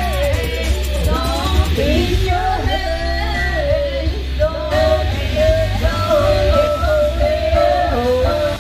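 A woman singing through a PA microphone over amplified accompaniment with a steady bass underneath, holding long notes that bend in pitch.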